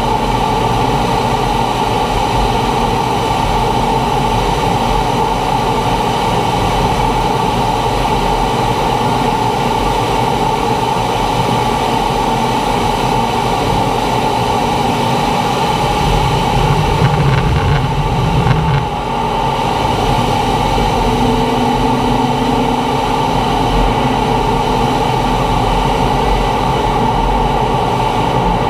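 T-45 Goshawk's Rolls-Royce Adour turbofan and airflow running steadily in flight, with a constant high tone over the rush. A deeper rumble swells for about two seconds around two-thirds of the way through.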